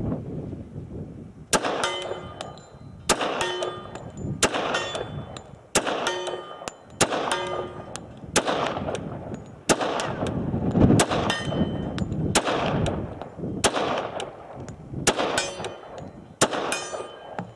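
Heckler & Koch Mark 23 .45 ACP pistol fired slow and steady, about a dozen shots roughly 1.3 seconds apart, a full magazine. Most shots are followed by a short metallic ring.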